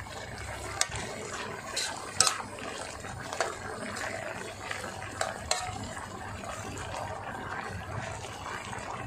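A metal ladle stirring thick green curry in a metal pot: a steady bubbling, wet sound of the curry cooking on high heat, broken by several sharp clinks of the ladle against the pot.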